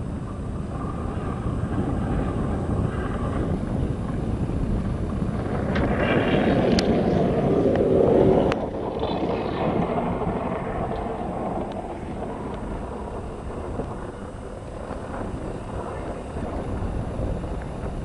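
Iceboat runners on lake ice making a rushing noise, mixed with wind on the microphone. It grows louder as the boat passes close, peaking about eight seconds in, then drops off suddenly.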